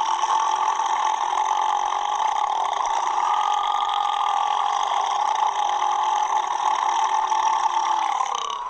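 One long, unbroken belch held at a nearly steady pitch for about nine seconds, cutting off near the end.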